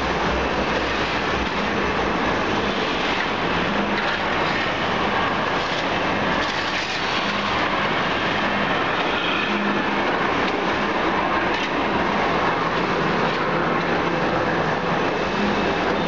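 Steady machinery noise from a running charcoal carbonization plant: an even roar with a faint low hum underneath and no distinct strokes.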